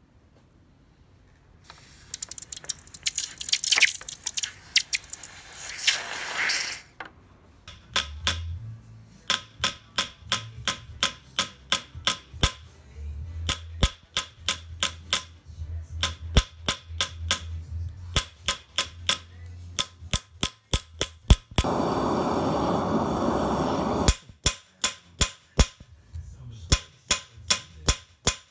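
Hand hammer striking a 999 fine silver disc on a steel block, sharp metallic blows at about two to three a second, spreading the metal thin between annealings. Before the hammering there is a few seconds of hissing, and near the end a steady rushing noise lasting about two seconds interrupts the blows.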